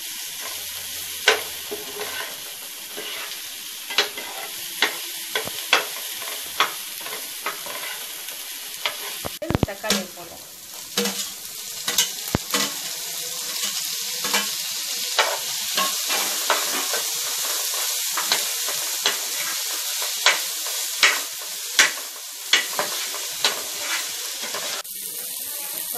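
Onions frying in oil in a non-stick kadai, a steady sizzle, with a steel slotted spoon clicking and scraping against the pan about once a second as they are stirred. About ten seconds in the sizzle briefly drops with a soft thud as chopped tomatoes go into the pan.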